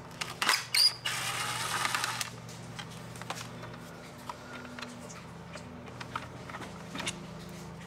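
A few sharp clicks and a brief rattle of grille parts and screws being handled, then sparse small ticks over a faint steady hum.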